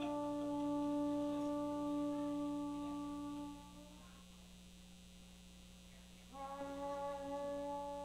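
Shofar blown in a long, steady, held note that stops about four seconds in. After a pause of about two and a half seconds, a second long blast starts with a slight upward bend in pitch and then holds steady.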